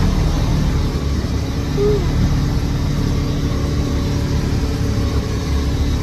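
Engine of a four-wheel-drive vehicle running steadily with a low hum while driving through a snowy field, with a brief squeak about two seconds in.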